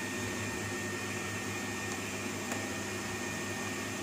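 Hitachi R-V350PZ refrigerator's inverter compressor running with a steady low hum and a faint steady high whine, just started up while the sealed system is being recharged with R600a refrigerant.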